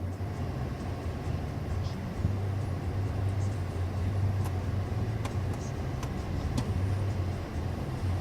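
Steady low hum and blowing inside a parked, running 2016 Mercedes E350: the engine at idle and the climate-control fan, with a few faint ticks.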